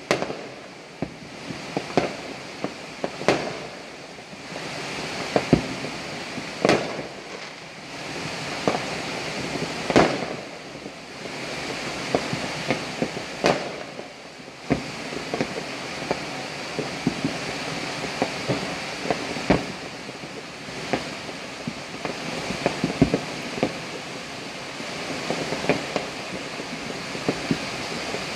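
Distant fireworks and firecrackers going off across a city: irregular sharp bangs and pops, sometimes several in quick succession, over a steady hiss.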